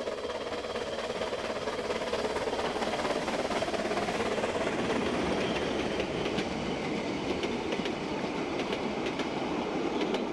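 Narrow-gauge steam train passing close by, its steady running noise growing a little louder as it comes on. From about six seconds in, the coaches roll past with repeated wheel clicks over the rail joints.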